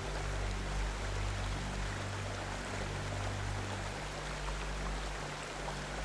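Steady rush of flowing river water, with a low steady hum underneath.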